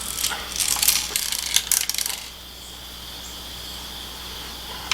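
Small metallic clicks and scrapes as a freshly cut-down piece of stiff wire is pushed and worked into a hole, lasting about two seconds, with one more click near the end.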